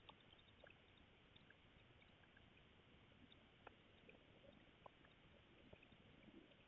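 Near silence: the steady low hiss of a CCTV camera's microphone, with scattered faint ticks and clicks.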